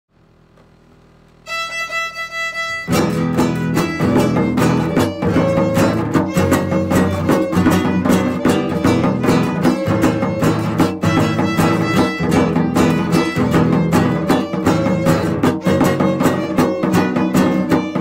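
Instrumental opening of a song: a single held note about a second and a half in, then from about three seconds in a full band of violin and guitar over a steady rhythm.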